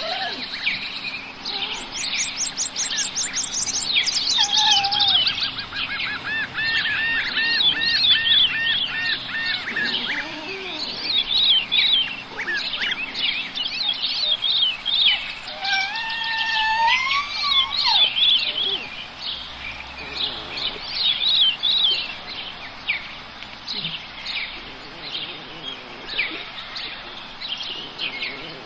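Birds chirping and singing, many short calls overlapping, with a quick run of repeated whistled notes about six seconds in.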